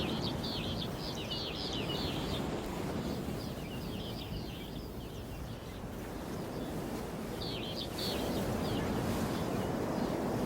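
Ocean waves washing on a beach as a steady rushing that swells about eight seconds in, with small birds chirping in short bursts three times over it.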